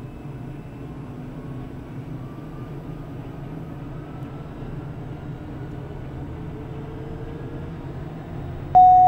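Daher TBM 960's PT6E turboprop engine heard from inside the cockpit just after start: a steady low rumble with a faint whine slowly rising in pitch as the turbine spools up toward idle. Near the end a loud, steady electronic alert tone comes on suddenly.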